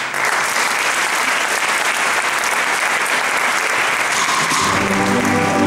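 Audience applauding after a spoken reading. About four seconds in, the brass band comes in under the applause with held low chords.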